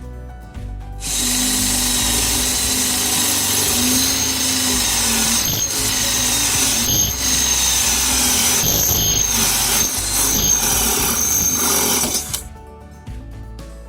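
Hamilton Ultimate cordless drill running under load as it bores into material, a dense loud grinding over a wavering motor tone. It starts about a second in, dips briefly several times, and stops abruptly near the end.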